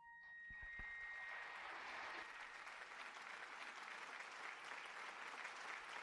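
Audience applause, swelling up within the first half second and continuing steadily, as the last held accordion note fades away underneath it.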